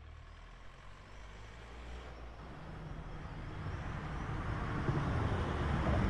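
Low rumbling noise with a hiss above it, fading in and swelling steadily louder.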